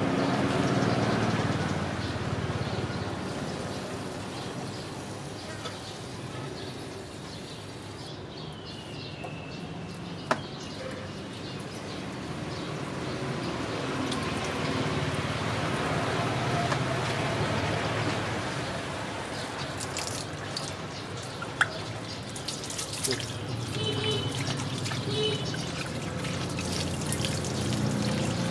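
Water from a hose running and splashing onto a monkey's fur and into a plastic basin as it is washed. Two sharp clicks cut through, about ten seconds in and again about twenty-one seconds in.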